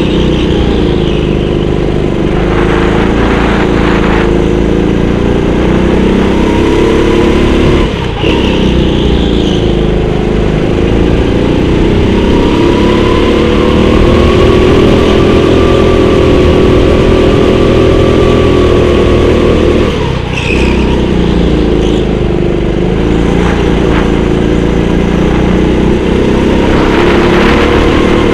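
Go-kart's small engine running hard around the track. Its pitch drops briefly near the start, about eight seconds in and again around twenty seconds, as the kart slows for corners, then climbs back up.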